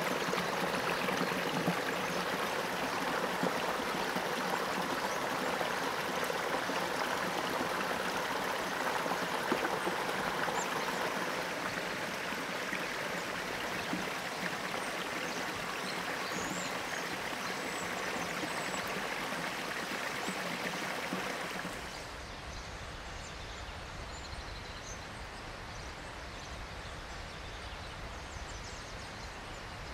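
Steady rushing of a woodland stream, with faint high chirps now and then. About 22 seconds in it cuts abruptly to a quieter, duller steady noise.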